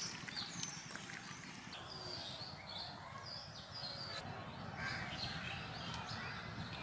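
Small birds chirping over and over in the background, with a few soft wet squishes and clicks near the start as a hand mixes marinated chicken pieces in a steel bowl.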